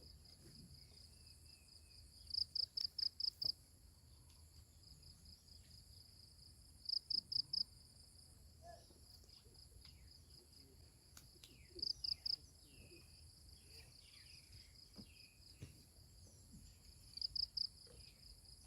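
Insects chirping, likely crickets: a steady high trill, with a louder burst of four to six quick chirps every four to five seconds.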